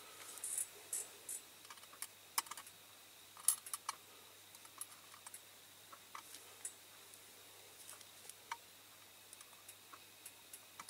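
Faint, irregular small clicks and taps of metal tweezers and tiny rivets against a diecast toy truck's metal baseplate as the rivets are pushed into place.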